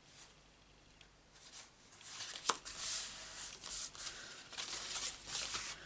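Cardstock rustling and scraping as a layered paper card front is handled and pressed down on the work mat, starting about a second and a half in, with one sharp tap about two and a half seconds in.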